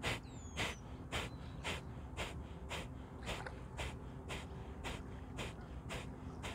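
Kapalbhati (fire breath): short, forceful exhales through both nostrils, about two a second in a steady rhythm, the inhales between them passive and nearly silent.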